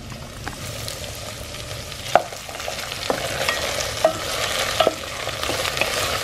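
Chopped onions and carrots frying in oil in a stainless steel pot with a steady sizzle while a wooden spoon stirs them, knocking against the pot a few times.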